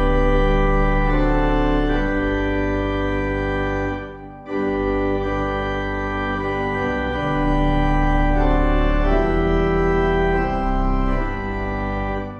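Organ music: slow, sustained chords that change every second or two, with a brief break about four seconds in.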